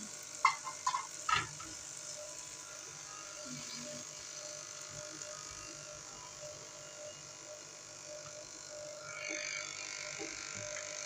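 Boiled chana dal tipped into frying masala in a nonstick karahi: a few soft knocks in the first second and a half, then quiet sizzling over a steady electric buzz, the sizzle growing a little louder near the end.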